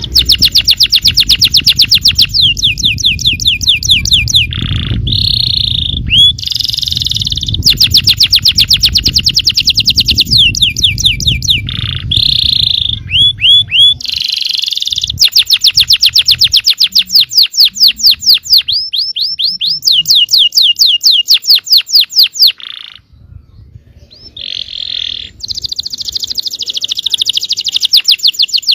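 Yellow domestic canary singing a long song of fast trills: rapid runs of repeated notes, some rolling and some sweeping, with brief pauses between phrases and a longer break about 23 seconds in. A low background rumble sits under the first half.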